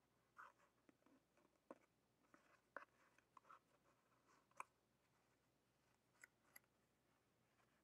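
Near silence, with faint scattered rustles and light clicks of yarn and a paper plate being handled as a knot is tied.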